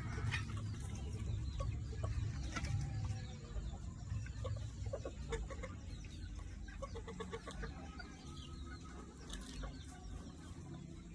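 Chickens clucking in short repeated notes, busiest in the middle of the stretch, over a low rumble that is loudest in the first few seconds.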